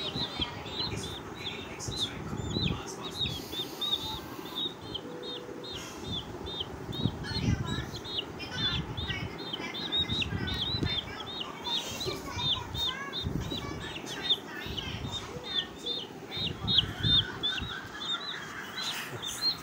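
Chicks peeping: a steady run of short, high, falling peeps, several a second, with fainter lower peeps at times. Low rustling and thumps run underneath.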